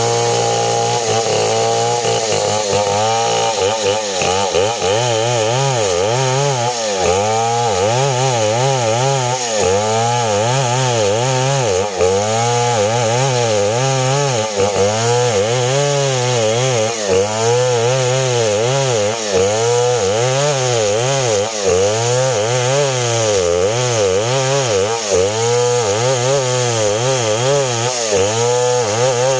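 STIHL 070 two-stroke chainsaw sawing a coconut-palm log under load. Its engine note dips and rises over and over as the chain bites into the wood.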